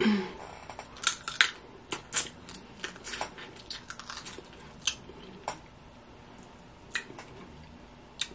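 Irregular sharp clicks and crackles of steamed blue crab shell being picked apart by hand, with the mouth sounds of eating the meat.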